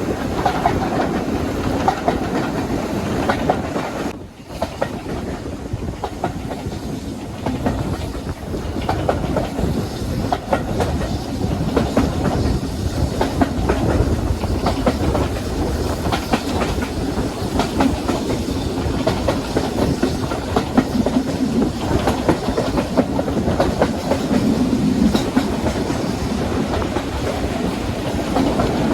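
A train running along the track, its wheels clicking rhythmically over the rail joints, with a continuous rumble. The sound drops briefly about four seconds in.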